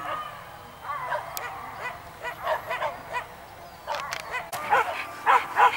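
Hunting dogs barking and yelping in pursuit on a wild boar hunt. A string of short high yips comes sparsely at first, then grows louder and busier over the last two seconds.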